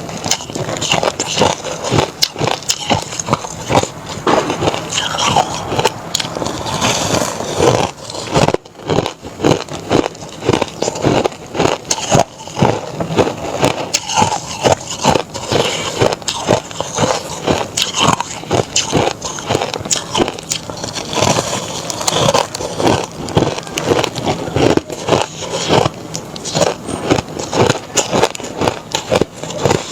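Reshaped crushed ice dusted with matcha powder being bitten and chewed close to the microphone: a dense, continuous run of crisp crunches, several a second, with a brief break about eight and a half seconds in.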